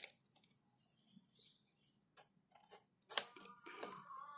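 Faint clicks, ticks and scrapes of hands handling a smartphone's cardboard box just after its seal has been cut. There is a sharper click at the start and a cluster of clicks about three seconds in. Near the end a faint steady hum of several tones begins.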